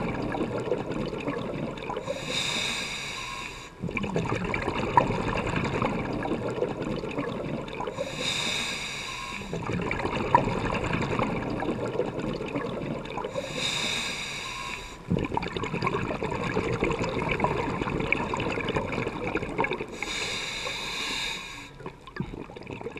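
A scuba diver breathing underwater through a regulator: four hissing inhalations, roughly six seconds apart, each followed by the gurgle of exhaled bubbles.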